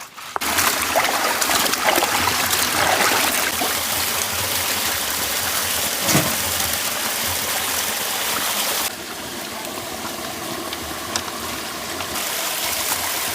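Steady rush of running water with splashing, a little quieter for a few seconds in the second half.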